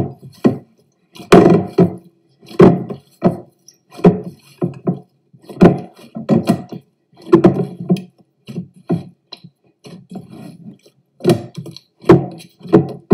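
Risen yeast dough being pressed down and kneaded by hand in a glass bowl, knocking the air out after its rise: about a dozen dull thumps at an uneven pace, roughly one a second.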